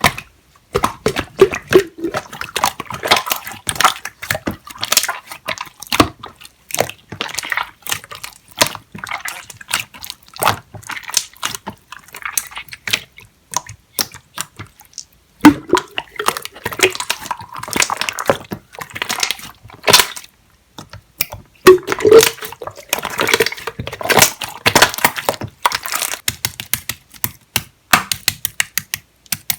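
Clear slime being squeezed and worked by hand, with fast wet popping and clicking squelches. The sound breaks off twice briefly in the second half.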